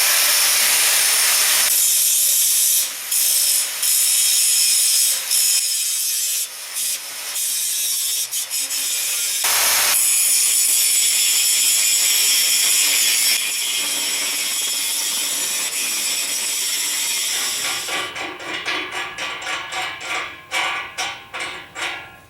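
Grinding and sanding on a welded steel frame: a steady, loud, hissing grind with a few brief breaks. Near the end it gives way to a run of quick, repeated scraping strokes that fade out.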